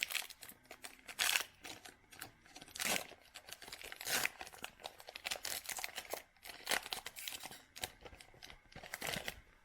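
A basketball trading-card pack wrapper being torn open and crinkled by hand, in irregular crackling rustles that stop just before the end.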